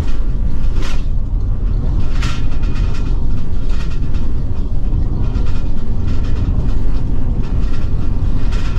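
Cab interior noise of a Ford E450 Class C motorhome driving over an uneven road: a steady low rumble of road and chassis noise, with a couple of short knocks or rattles about one and two seconds in.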